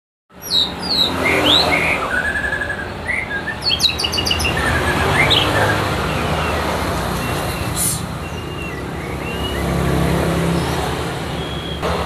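Male white-rumped shama singing in its cage: varied whistles, upward glides and quick repeated trill notes, busiest in the first half and sparser later. A steady low rumble of road traffic runs underneath.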